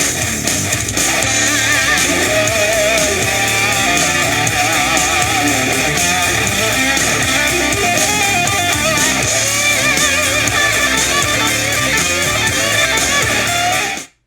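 Guitar-driven music with electric guitar, played through a Sony SRS-X33 Bluetooth speaker at 80% volume and picked up by a microphone. It cuts off suddenly near the end.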